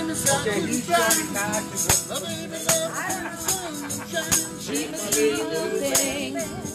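Acoustic guitar strummed in a steady rhythm, with a voice singing along.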